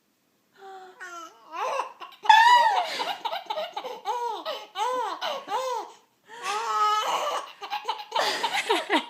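Baby laughing hard in a run of high squealing laughs that rise and fall, about two a second, with a breathy, wheezy laugh near the middle.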